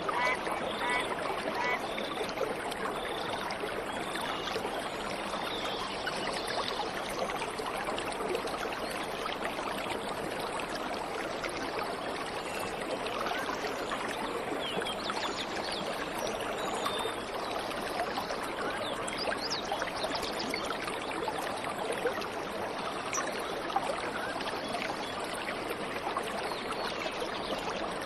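Waterfall water rushing steadily. A bird calls in a run of short, evenly repeated notes over the first several seconds.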